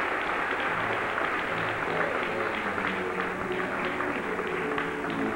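Audience applauding, a dense patter of many hands clapping, with instrumental music starting up under it about a second in and holding steady notes.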